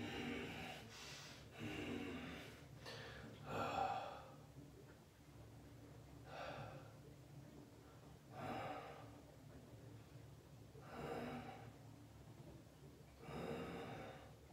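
A man breathing heavily while sitting in ice-cold bathwater: loud, ragged breaths in and out, one about every two to three seconds.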